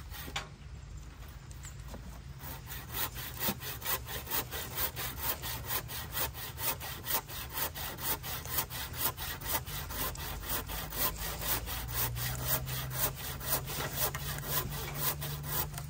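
Rhythmic back-and-forth scraping strokes, about two to three a second, settling into a steady rhythm a couple of seconds in.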